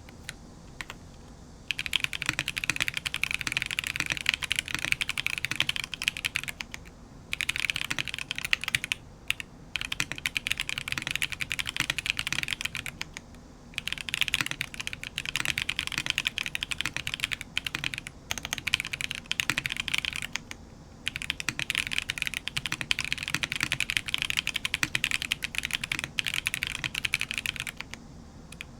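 Typing on a Glare65 custom mechanical keyboard with TTC Holy Panda tactile switches lubed with a Krytox 105/205 mix, mounted on a carbon fibre plate with no foam, under JTK keycaps: rapid key clacks in runs of a few seconds with short pauses between them.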